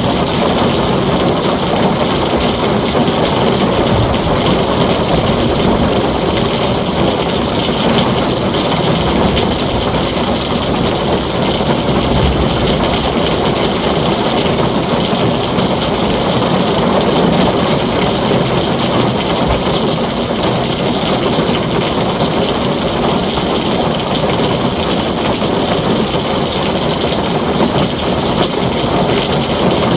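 Heavy rain falling steadily on a tin roof: a dense, even hiss with a low rumble beneath it.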